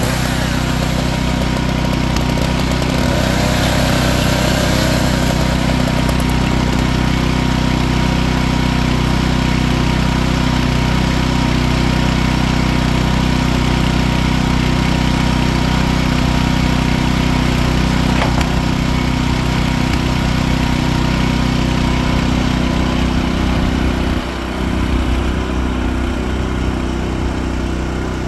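An engine running steadily at a constant speed. About 24 seconds in its sound shifts and drops a little in level.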